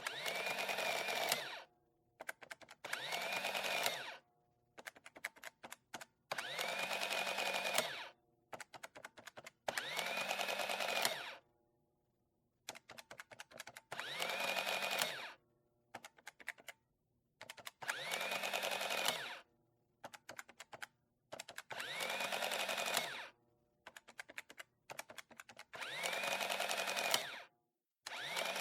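Office printer running in about eight repeated passes of roughly two seconds each. Each pass is a dense mechanical whirr whose pitch rises as it starts and falls as it stops, with bursts of quick clicks between passes.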